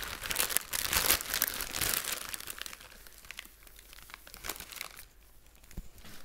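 Crinkling of a plastic bag and dried forest moss being pulled apart by hand, loudest in the first two seconds, then softer scattered rustling as the moss is pressed in around the plants in a pot.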